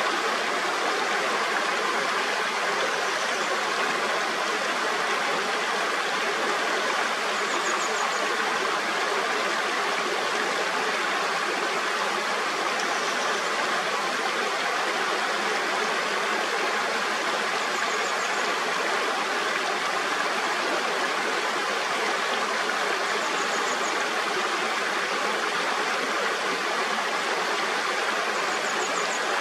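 Mountain stream: water rushing and splashing over rocks in a steady, unbroken flow. A faint, short, high chirp comes about every five seconds.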